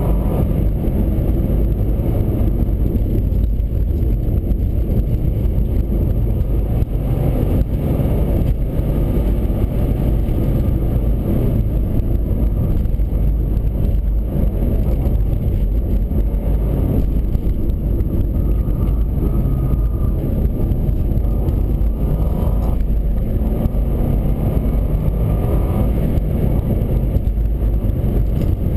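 Steady engine and road noise inside the cabin of a 2003 Subaru Forester under way, its flat-four boxer engine running beneath a low, even rumble of tyres on the road.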